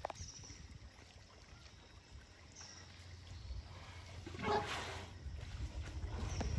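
Young Asian elephants moving in a muddy pool: faint water sounds from their trunks and legs, with one louder, short rush of noise about four and a half seconds in.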